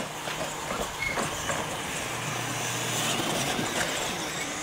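Radio-controlled monster trucks racing across a dirt track, their motors running and tyres working the dirt.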